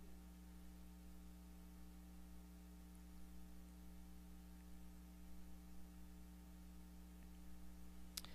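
Near silence with a steady electrical mains hum; a single sharp click near the end.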